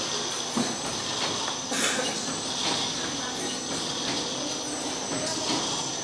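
Automatic plastic-bag cutting and sealing machine running steadily, the film unwinding off its roll, with a thin high whine over the machine noise and occasional short clicks.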